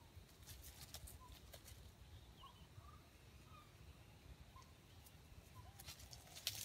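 Junglefowl foraging in dry leaf litter: faint scattered rustles and scratches with a few soft, short calls, and a denser patch of rustling near the end.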